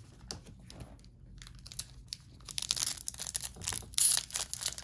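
Plastic foil wrapper of a trading-card pack being handled and torn open: a few light clicks at first, then about halfway in a spell of dense crinkling and tearing, sharpest near the end.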